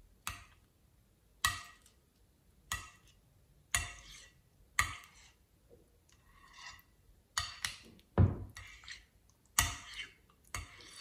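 Thick, sticky slime being stirred and then folded and pressed by hand in a glass bowl, making sharp wet clicks and pops about once a second, with a softer crackle as it is stretched partway through.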